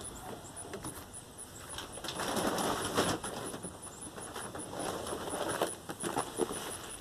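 Paper feed sacks rustling and scraping as they are pulled from a pickup truck bed. The noise swells about two to three seconds in, with scattered clicks and a faint, steady high ticking behind it.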